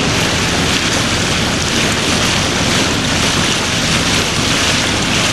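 Steady wind rushing over the microphone, mixed with water swishing along the hull of a sailboat under way.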